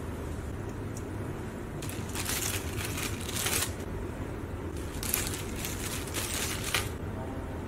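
Clear plastic packaging bag crinkling in two bouts of a couple of seconds each as cables and antennas are handled, over a steady low hum.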